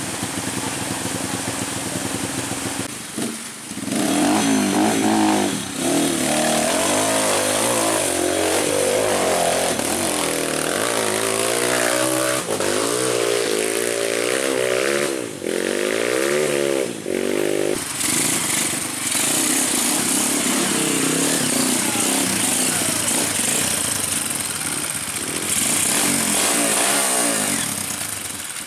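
Several off-road trail motorcycles running, their engines revving up and down with pitches rising and falling over one another. The revving is most intense from about four seconds in until about eighteen seconds.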